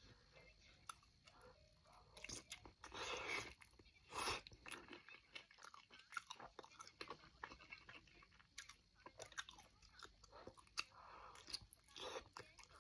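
A person chewing and biting food close to the microphone, mouth sounds with many small clicks and a few louder bites about three and four seconds in and again near the end.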